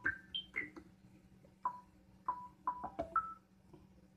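Novation Mininova synthesizer playing about ten short, pitched sine-wave notes at varying pitches, each starting sharply and fading quickly: a percussive patch with a short amplifier-envelope decay.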